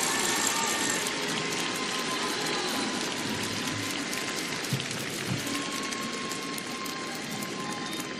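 Large audience applauding, a dense patter of clapping that slowly dies down.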